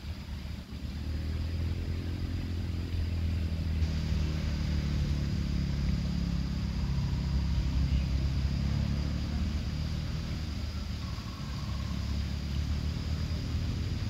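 Low engine hum of a motor vehicle, swelling over the first few seconds and easing off later.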